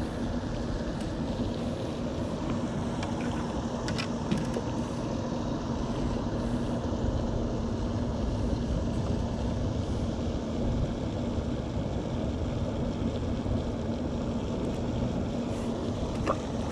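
Steady outdoor background noise: an even low rumble and hiss with a constant low hum under it, and a light click about four seconds in.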